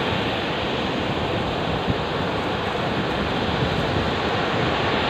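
Heavy surf breaking and washing up the shore in a strong storm wind: a steady rushing wash with low wind rumble on the microphone.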